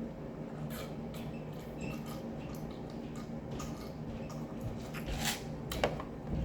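Close-up mouth sounds of someone chewing food: small wet clicks and smacks, with a louder wet smack about five seconds in, over a steady low hum.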